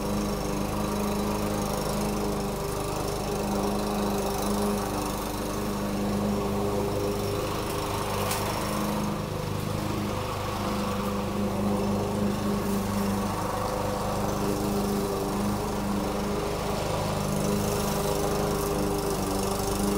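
Walk-behind gas lawn mower engine running steadily while cutting shaggy grass.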